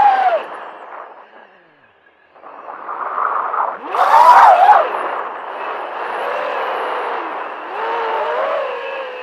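FPV racing quadcopter's brushless motors and propellers heard through the onboard camera's microphone. The whine fades out to near quiet just after the start, then comes back with a sharp rise in pitch about four seconds in and carries on as a wavering whine, rising and falling with the throttle.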